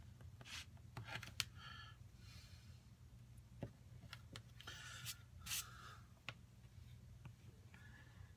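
Snap-off utility knife blade making short, small cuts through leather on a cutting mat: faint scratchy scraping strokes and small clicks at irregular moments, over a steady low hum.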